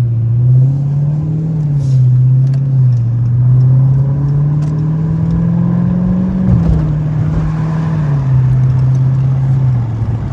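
Car engine running while driving, its note climbing steadily under acceleration and then dropping sharply about six and a half seconds in, as at a gear change, before falling once more and settling.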